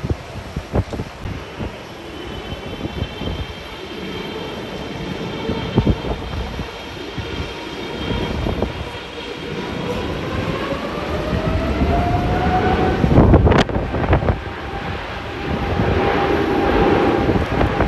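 Jet airliner engines whining, with a second whine rising in pitch about ten seconds in and then holding steady, as the engines spool up. Wind gusts buffet the microphone throughout, hardest just after the rise.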